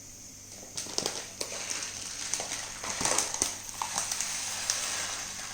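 Dry basmati rice being poured from a drinking glass into a bowl: many small, irregular ticks and rattles of grains landing.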